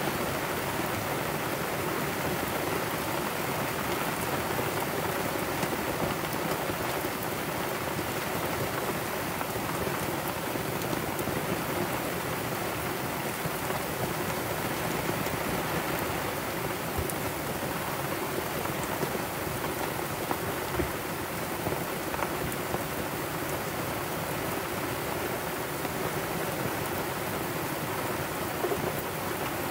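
Heavy rain falling steadily on a sailboat's deck and canvas, an even hiss with a few louder drips scattered through it.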